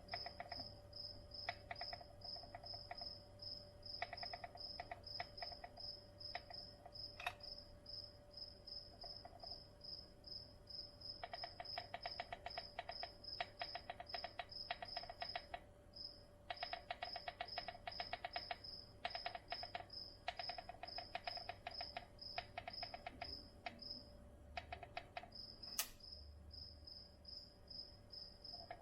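A cricket chirping steadily, about three chirps a second, over a faint steady hum, with bursts of rapid faint clicking that come and go.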